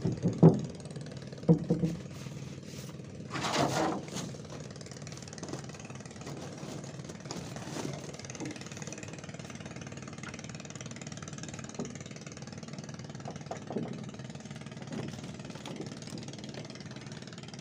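A small engine runs steadily, with a few loud knocks and a clatter in the first four seconds.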